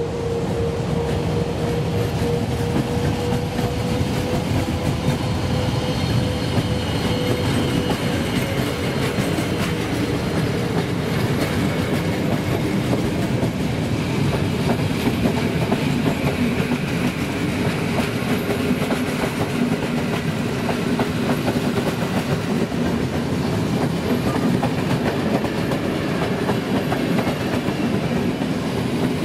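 Intercity passenger coaches rolling past close by: a steady rumble of wheels on the rails with a rapid clatter over the track, unbroken throughout.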